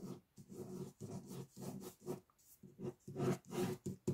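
Ballpoint pen scratching over sketchbook paper in short, quick strokes, about two or three a second, faint.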